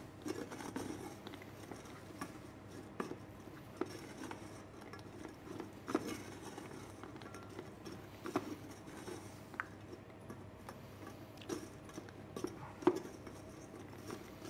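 Wooden spatula stirring nuts in a stainless steel saucepan: a soft scraping broken by light, irregular knocks of the spatula and nuts against the pan. The nuts are roasting in slowly caramelising sugar.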